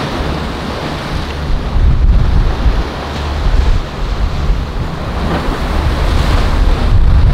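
Ocean waves breaking and washing, rising and falling in surges, with heavy wind rumble on the microphone.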